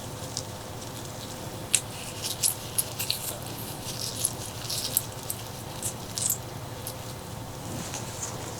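Close-miked eating: a sharp crunchy bite about two seconds in, then a few seconds of crisp crackles and wet chewing smacks, growing quieter near the end. A faint steady hum runs underneath.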